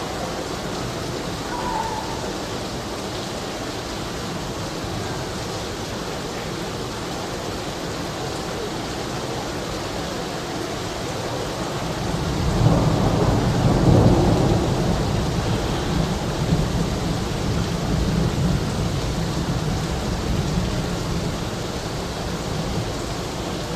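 Steady rain with a long roll of thunder: the rumble swells about twelve seconds in, peaks a couple of seconds later and rolls on for several more seconds before easing back into the rain.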